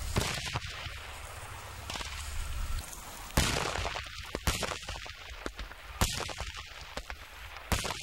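Sharp bangs from military pyrotechnic artillery and battle simulators going off one after another, a couple of seconds apart. The three loudest come in the latter part.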